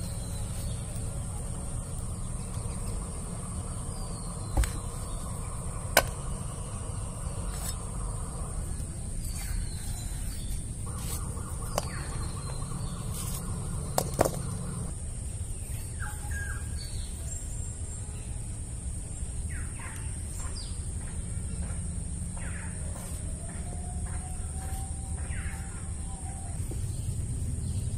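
Snake gourd being sliced on a bonti blade, heard as a few sharp clicks and knocks as the blade cuts and pieces drop into an aluminium bowl. Under it, birds chirp now and then and a steady high insect drone runs on.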